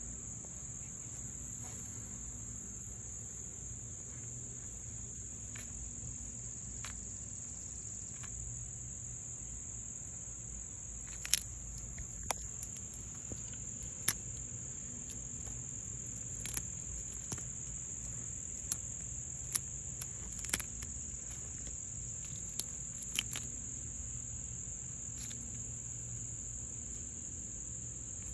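Steady high-pitched drone of an insect chorus, unbroken throughout, with a handful of short sharp clicks scattered through the middle and later part.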